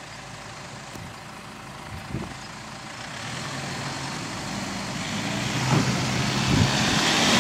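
Toyota Land Cruiser Prado SUV's engine pulling as it starts up a steep dirt slope, with the noise of its tyres on the dirt. The sound grows steadily louder as the SUV comes closer.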